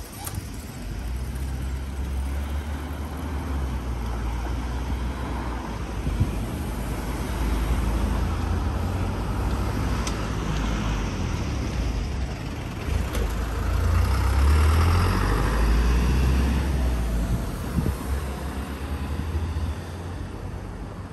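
Road traffic: a heavy vehicle's engine running close by, steady and low, with passing traffic growing louder about two thirds of the way through.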